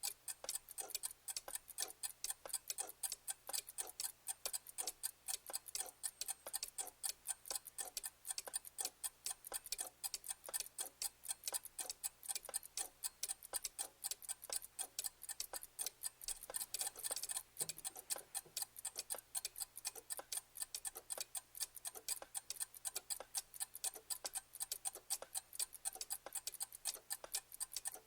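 Clock ticking: a steady, even run of sharp ticks, several a second.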